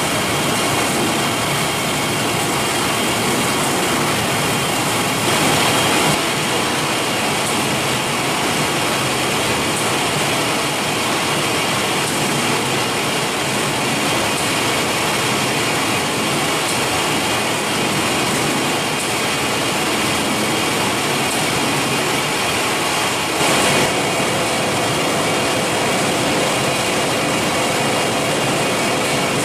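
Steady din of food-processing factory machinery: a dense, even mechanical noise with faint steady hums in it. The sound shifts abruptly twice, about five seconds in and near the end, where a low steady hum joins it.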